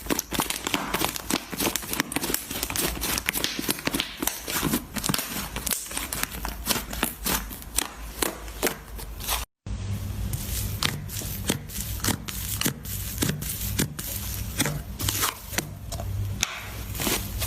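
Slime being squeezed and poked by hand, giving rapid, irregular crackling clicks and pops, broken by a brief gap about halfway through.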